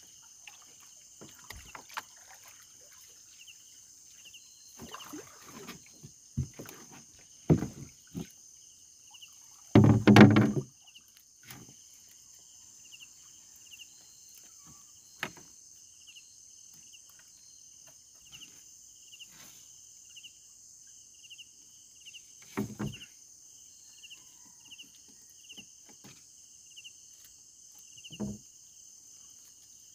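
Knocks and water sounds from a small boat being paddled or handled during net fishing. The loudest knock comes about ten seconds in, with a few smaller ones later. Underneath runs a steady high insect hum and a faint chirp repeating about once a second.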